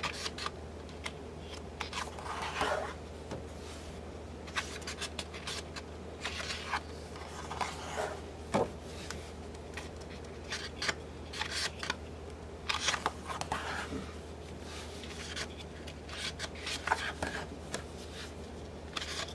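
Pages of a pearl-finish patterned paper pad being turned and smoothed flat by hand: a run of short rustles and slides of paper on paper, over a steady low hum.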